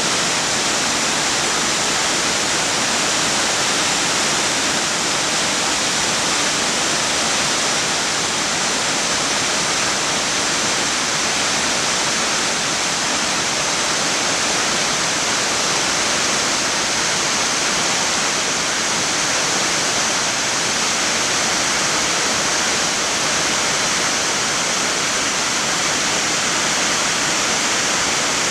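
Nanatsugama Godan Falls, a five-tier mountain waterfall, crashing into its pools in a steady, loud hiss of falling water.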